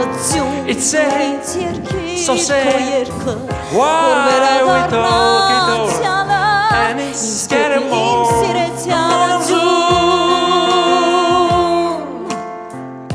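A woman singing into a microphone over a backing band, with long held notes and wide vibrato. The music eases down about a second before the end.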